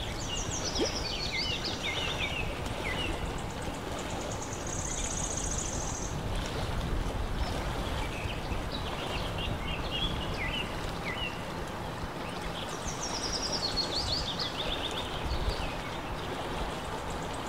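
Steady outdoor rushing of wind and rippling lake water, with a songbird singing at intervals over it: runs of quick chirps falling in pitch, and a high buzzy trill, the phrase coming round again about twelve seconds later.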